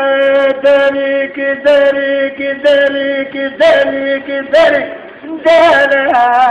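A man singing a Turkish folk song (türkü) without accompaniment, in long held notes with short ornamented slides, pausing briefly for breath once a second or so.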